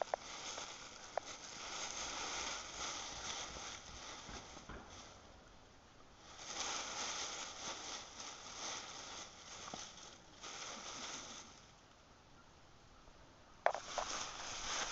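Dry fallen leaves rustling and crunching as two dogs, a Weimaraner and a smaller dog, wrestle and dig in a deep leaf pile, in two long stretches with a quieter lull near the end.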